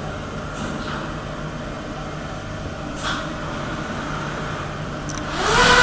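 Steady hum of a CNC machine with a few soft hisses. Near the end a rising whine climbs and settles into a steady, louder whine as the spindle spins up the Lang Clean Tec chip-cleaning fan.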